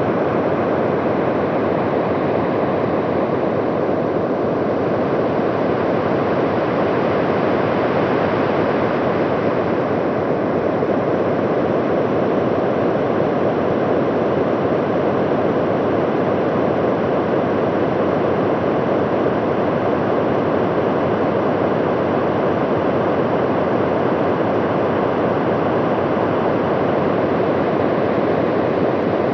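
A steady, deep rushing rumble of noise with no pitch, presented as a recording of Venus's atmosphere.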